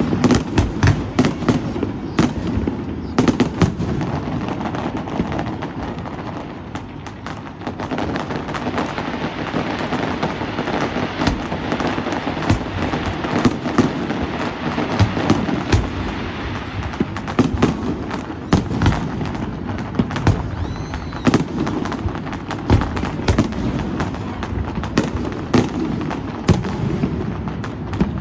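Fireworks display: a rapid, continuous barrage of bangs and crackling, easing briefly about six seconds in before building again.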